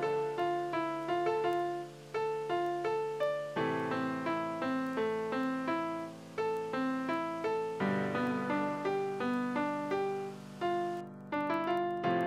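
Background piano music: a flowing line of quick single notes, about three a second, over held bass notes that change roughly every four seconds.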